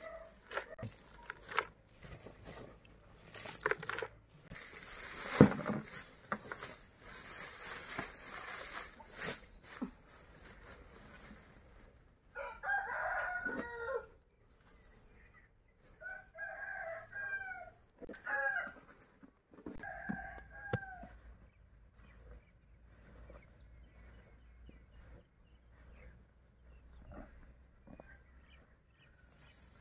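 Dry feed being scooped by hand out of a woven plastic sack into a bucket: rustling and scraping with sharp knocks, the loudest about five seconds in. Then a rooster crows, three or four calls of a second or two each, before things go quieter.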